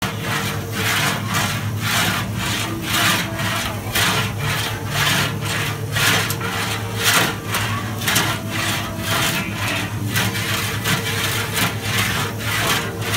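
A large shallow iron pan of baozi scraping and grating against the stove rim as it is swung and turned over a gas flame, about three scrapes a second. A steady low hum runs underneath.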